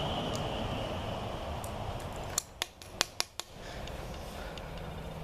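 Brittle plastic inner piece of a Chevrolet Colorado's EVAP vent tube cracking as it is crushed: about five sharp snaps packed into a second, a little past the middle.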